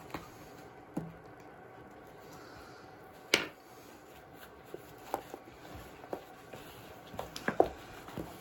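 Spoon stirring a stiffening pop-up bait dough in a mixing bowl: scattered light knocks and scrapes against the bowl, the loudest about three seconds in and a quick cluster near the end.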